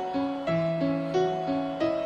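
Gentle instrumental background music: a repeating pattern of plucked or keyboard-like notes, about three a second, over a held low note.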